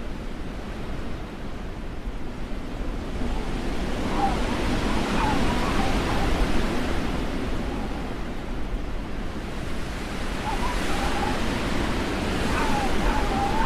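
Blizzard wind blowing in gusts, swelling twice, with a wavering whistle rising in pitch on top of each gust.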